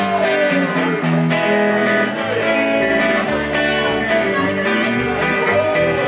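A small live country band playing an instrumental intro on electric guitar, acoustic guitar and upright bass, with deep bass notes coming in about two seconds in.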